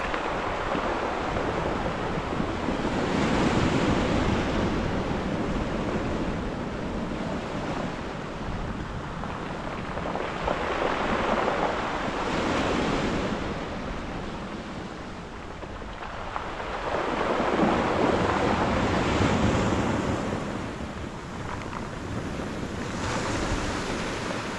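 Small waves breaking and washing up a shingle beach, the surge swelling and fading every few seconds.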